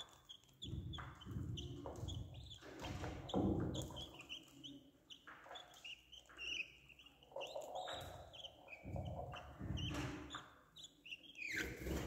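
Budgerigar chicks' begging chirps while an adult budgerigar feeds them: many short high chirps in quick, irregular runs, with low rustles and bumps in between.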